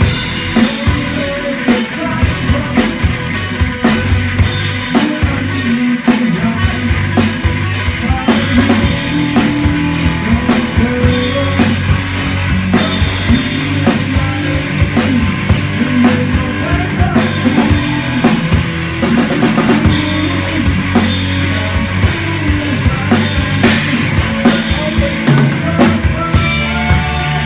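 Drum-heavy music with a steady beat and strong bass, played loud over a sound system being tested.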